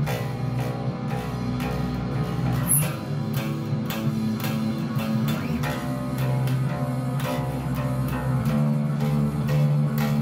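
Four-string electric bass guitar playing a rock riff over a full band recording, with drums keeping a steady beat and guitars.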